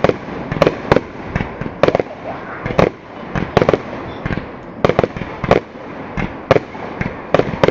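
Aerial fireworks display: a rapid, irregular string of about a dozen sharp bangs from bursting shells, roughly one or two a second, with steady noise between them.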